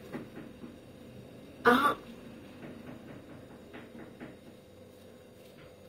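One short vocal sound from a person, a brief groan or cough-like utterance, about two seconds in, over quiet room tone with a faint steady hum and a few soft rustles.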